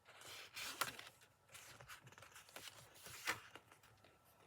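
Paper pages of a picture book rustling as they are handled and turned, with two sharper crackles, one just under a second in and one about three seconds in.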